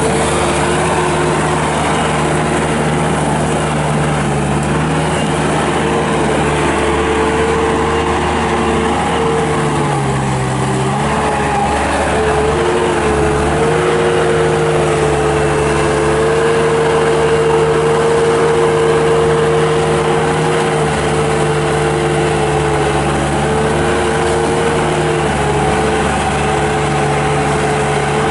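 Bobcat 863 skid steer's oil-cooled four-cylinder Deutz turbo diesel running steadily. Its engine speed sags briefly about ten seconds in, then recovers.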